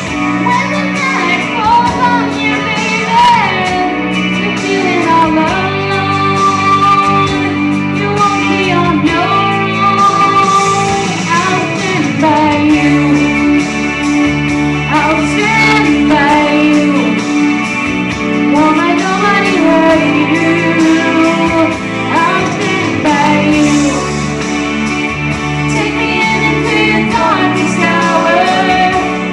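A woman singing over guitar-backed music.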